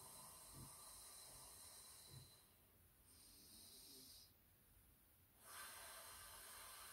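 Near silence: a faint steady hiss with soft, barely audible breathing from a pursed-lip breathing exercise, the breath blown out slowly onto a finger held at the lips.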